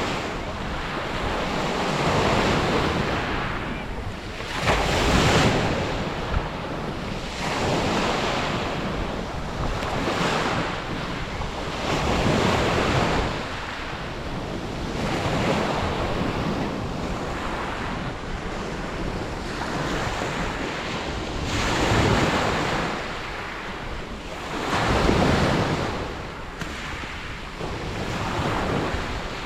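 Sea waves breaking on a beach, surging and easing in a steady rhythm every two to three seconds.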